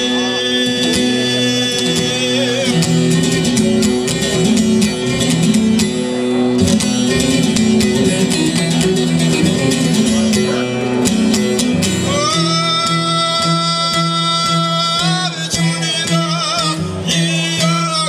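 A man singing an Albanian folk rhapsody in long, held, wavering notes, accompanying himself on a long-necked plucked lute strummed in rapid strokes. The voice holds a long note at the start and again about twelve seconds in, with a busy stretch of fast plucking between.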